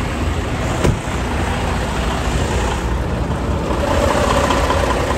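Semi-truck idling close by: a steady low rumble with road-noise hiss, and one short click about a second in.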